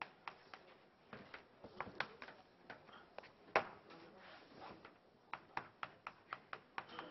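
Chalk clicking and tapping against a blackboard while writing, in quick separate strokes, with one sharper knock about halfway through and a faster run of clicks near the end.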